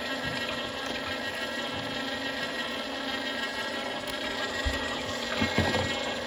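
Sharp Healsio juicer running steadily as it presses peeled mandarins, its motor giving a steady hum made of many fine tones. A couple of low knocks come about five seconds in.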